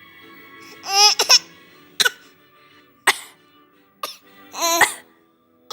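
A baby giving short pretend coughs mixed with little pitched vocal sounds, several separate bursts a second or so apart, over soft background music.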